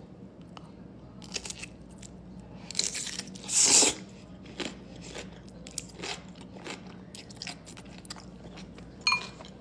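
Close-up eating sounds: crisp crunching bites of fresh cucumber and chewing, in scattered bursts, the loudest about three and a half seconds in.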